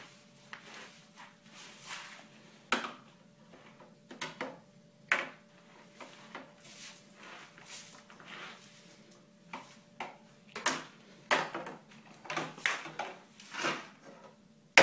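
Dry dog-food kibble clattering and skittering on a hard floor as a toddler's hands sweep and scoop through it. The rattles come irregularly and grow more frequent over the last few seconds.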